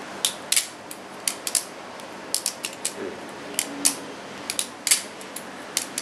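Balisong (butterfly knife) being flipped open and closed, its swinging handles striking the blade's tang pins in sharp metallic clicks. The clicks come in quick, uneven clusters, about eighteen of them.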